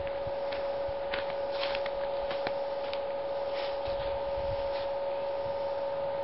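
A steady mid-pitched hum, with a few soft scuffs and rustles from footsteps on grass in the first few seconds.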